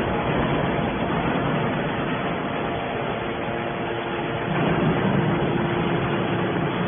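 Hydraulic scrap metal baler press running: a steady mechanical drone with a few faint steady hums over it, swelling slightly about two-thirds of the way through.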